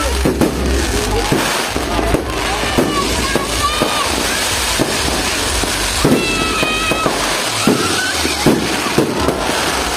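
Fireworks display going off overhead: a continuous dense crackle with irregular sharp bangs, about one or two a second.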